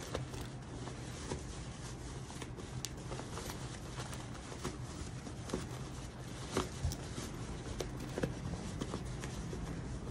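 Quilted cotton zipper pouch being turned right side out by hand: faint rustling of fabric with scattered soft ticks.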